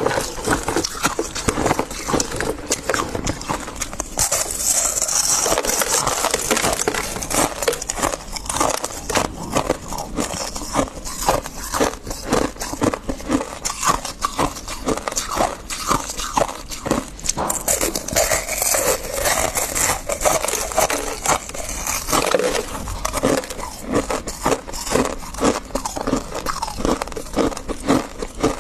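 Freezer frost being scraped and chewed, heard close up: a dense run of rapid, sharp crunches that goes on throughout.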